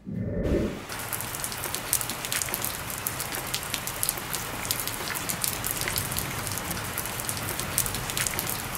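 Steady rain falling, an even hiss dotted with many sharp ticks of drops, starting about a second in after a brief low thump.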